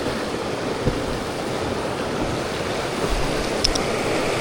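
Whitewater rapids rushing around a raft: a steady, even rush of moving river water.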